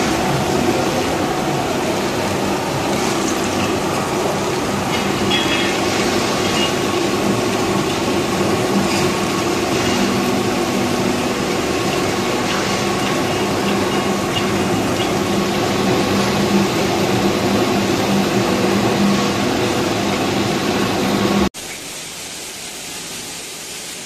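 Tyre buffing machine running steadily, its rasp grinding rubber off a spinning 12.00-24 truck tyre, with a steady hum and a higher tone under the grinding noise. Near the end it cuts off suddenly to a quieter workshop background.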